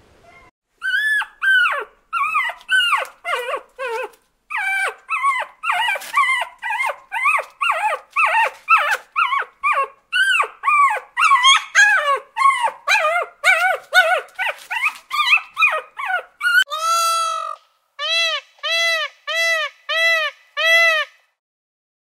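Small dog yipping and whimpering in rapid, high-pitched cries. Near the end, a peacock gives a series of about six evenly spaced rising-and-falling calls.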